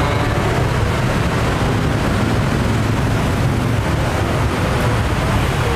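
Steady noise of busy street traffic running past.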